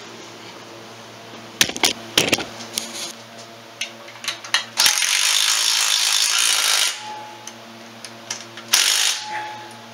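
DeWalt 20-volt cordless driver running a socket on an extension to drive the transmission bracket bolts home. It runs for about two seconds about halfway through, and again briefly near the end, after some clinks of the socket and extension against metal.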